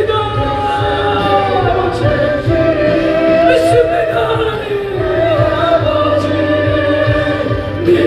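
Background music: a choir singing slow, long-held notes.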